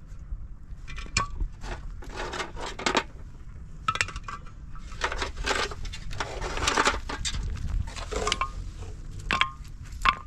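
Stone pieces knocking and clinking against concrete blocks as they are dropped and packed into the blocks' hollow cores, with an irregular run of sharp knocks and scrapes.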